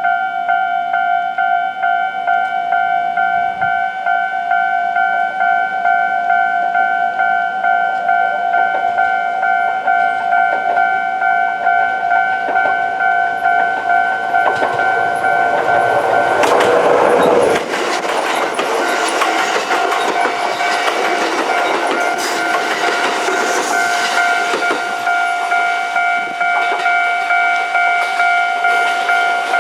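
Japanese level-crossing warning bell ringing steadily throughout. From about halfway through, Kintetsu electric trains rush through the crossing, wheels clattering over the rail joints. These are a 2610 series express and a 1440 series local passing each other.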